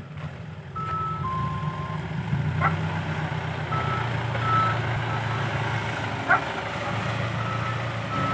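Isuzu NPR 115 dump truck's diesel engine running steadily as it drives on loose sand, with a series of short high electronic beeps. Two sharp knocks come through, the louder one about three-quarters of the way through.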